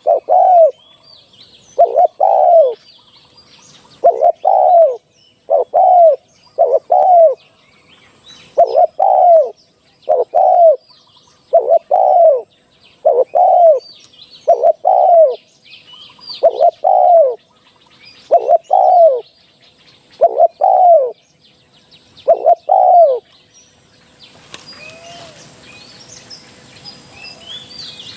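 Spotted dove cooing: a steady run of short, paired coos repeated about every one and a half to two seconds. The cooing stops about 23 seconds in, leaving faint outdoor noise with small birds chirping.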